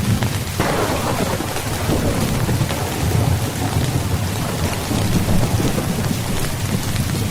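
Steady rain with a clap of thunder that breaks in sharply about half a second in, then rumbles away over the next few seconds.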